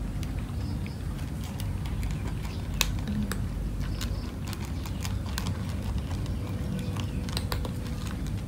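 Cats eating dry kibble from a metal tray: irregular sharp crunches and clicks of the pellets. A steady low rumble underlies it.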